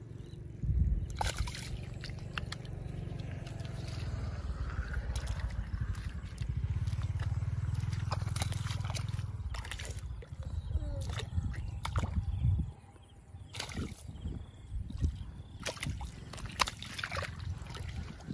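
Muddy water sloshing and splashing with irregular knocks, over a steady low rumble.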